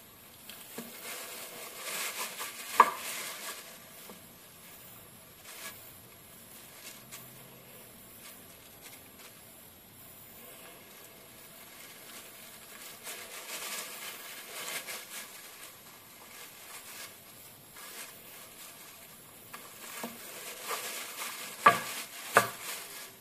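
Knife cutting through a slab of homemade nougat laid on a plastic bag, the plastic crinkling and rustling in bouts. There are a few sharp clicks of the knife, the loudest about three seconds in and two more near the end.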